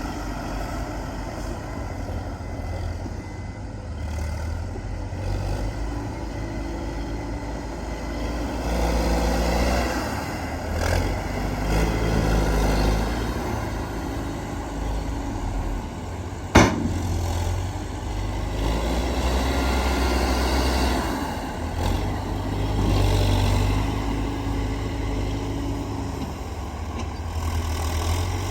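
Heavy diesel earthmoving machinery running, an excavator and dump trucks, with the engine sound rising and falling as the machines work under load. A single sharp clank a little past halfway is the loudest sound.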